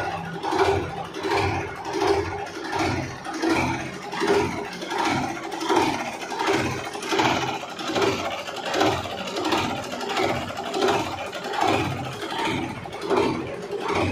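Belarus 520 tractor's four-cylinder diesel engine idling, heard close at the open engine bay, with a regular swell in its sound about every three-quarters of a second.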